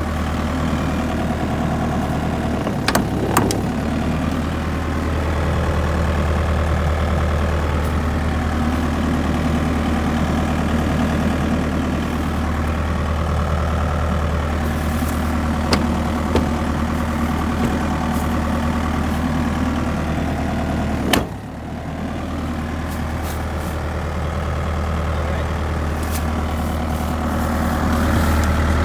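Mini excavator engine running steadily, with a few sharp metallic knocks about three seconds in, around sixteen seconds and just after twenty-one seconds. It grows a little louder near the end.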